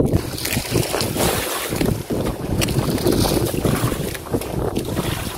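Wind buffeting the microphone on a small outrigger boat at sea, a steady low rumble with irregular gusts and light knocks from the boat.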